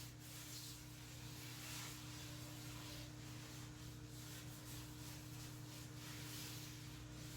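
Faint, soft rubbing as oil is spread around the inside of a cast iron Dutch oven, over a steady low hum.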